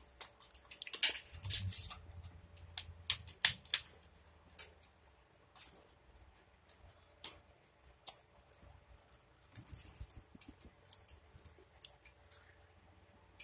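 Close-up mouth sounds of eating an Oreo ice cream bar, done as ASMR: crisp crackles and clicks of biting and chewing, busiest in the first few seconds, then scattered.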